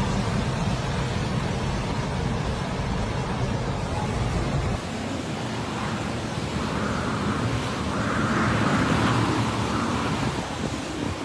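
Hurricane wind blowing hard, a dense rushing noise with heavy rumble of wind on the microphone; the sound changes abruptly about five seconds in, then swells in a gust near the end.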